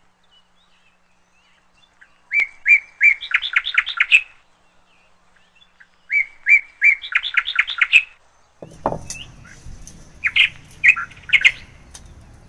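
A bird singing: a phrase of three even chirps that runs into a quick, rising string of notes, heard twice. Near the end a low background hum comes in under another, looser burst of chirps.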